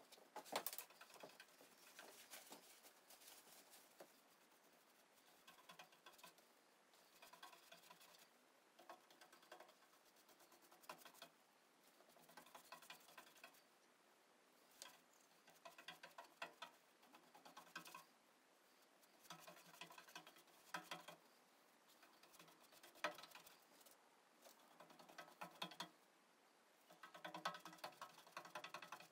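Faint scratching of a paintbrush's bristles scrubbing over a sheet-metal drawer, coming in short bouts with pauses between, as black enamel paint is brushed on.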